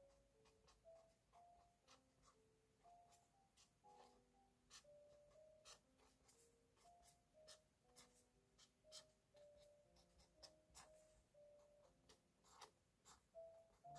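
Pen tip tapping and scratching on paper in short, quick strokes while lettering by hand, faint and close. A soft melody of single notes plays quietly underneath.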